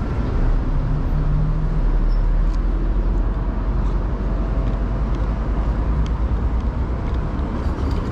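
Street traffic: nearby car engines running with a steady low rumble.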